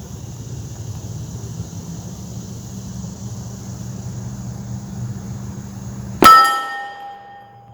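A single 9mm pistol shot about six seconds in, from a Palmetto State Armory Dagger Compact firing a subsonic 143-grain cast flat-nose handload. It is followed by a metallic ringing that fades over about a second, typical of a steel target being hit. A steady low rumble sits underneath before the shot.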